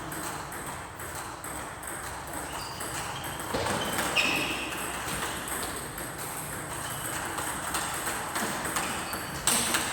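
A racket-sport rally: repeated sharp ball or shuttle hits at irregular spacing, with a few short high squeaks.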